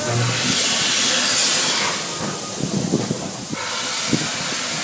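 Rushing wind hissing over the microphone as the Big Thunder Mountain Railroad mine-train roller coaster runs along, with the cars rattling and clacking on the track in the second half.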